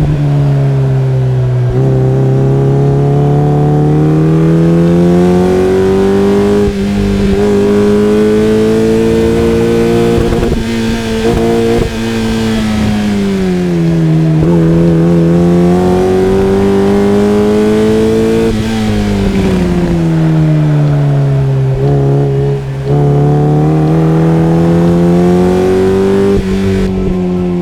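Tuned 2001 Mazda Miata NB2's 1.6-litre inline-four, with cold air intake and axleback exhaust, driven hard on a race track. The revs climb slowly through the gears with short dips at the shifts, and fall away twice before building again.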